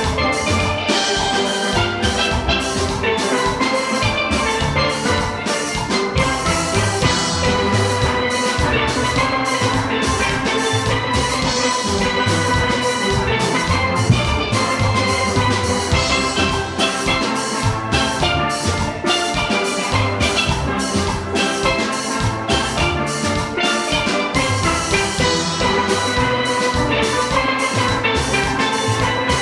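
Steel orchestra playing: many steelpans sounding tuned notes together over a steady drum and percussion beat.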